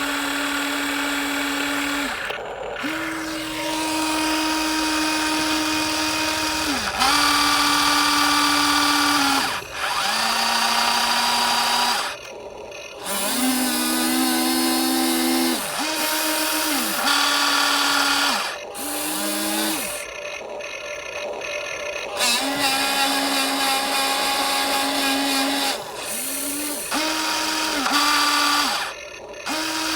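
Electric motors of a metal RC excavator whirring in repeated runs of one to three seconds. Each run is a steady high whine that sags in pitch as it stops, and at times two motors run together at different pitches.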